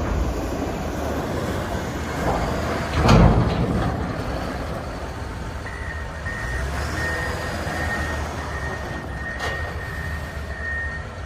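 John Deere 644 P-Tier wheel loader's diesel engine running steadily, with a brief loud burst about three seconds in. From about halfway through, its reversing alarm sounds a steady series of beeps as the loader backs up.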